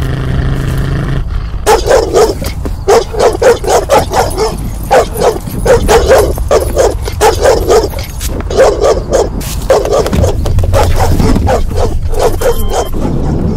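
A dog barking loudly and rapidly, two to three barks a second, starting about two seconds in and going on with a few short breaks, over a low steady rumble.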